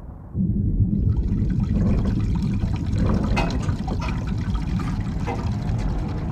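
Water rushing and gurgling through pipes, starting suddenly a moment in and carrying on as a loud, steady rush with small splashy accents.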